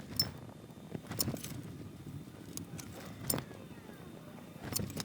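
Four small sharp metallic clicks and taps from tools and parts being handled at the soldering bench, over a low steady background.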